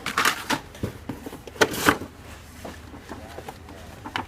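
Cardboard and plastic blister packaging being handled, rustling and scraping in two short bursts, the first at the start and the second around two seconds in, with a brief knock near the end.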